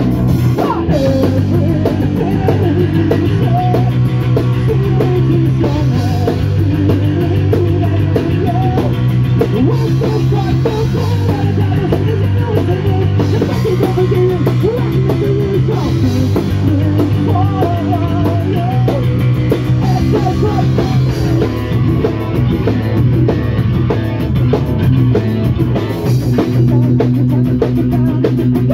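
Punk rock band playing live: guitar, bass and a drum kit driving steadily, with a man singing over them.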